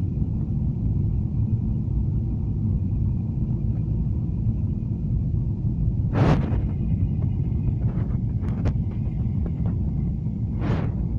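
Steady low rumble inside an airliner's cabin during landing, with a faint steady whine and a few brief knocks or rattles, the loudest about six seconds in and another near the end.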